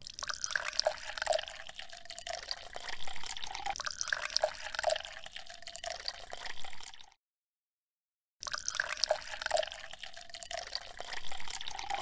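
Water splashing and dripping, with a busy hiss and short bubbly plinks. It cuts off abruptly about seven seconds in and starts again in the same way a second or so later.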